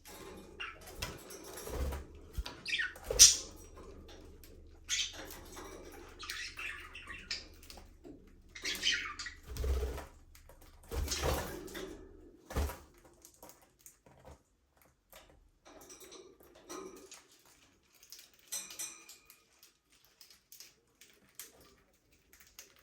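Budgerigars chirping and chattering in short, irregular calls, mixed with scattered clicks and taps. The calls are busiest in the first half and thin out after. A low steady hum underneath stops a little past halfway.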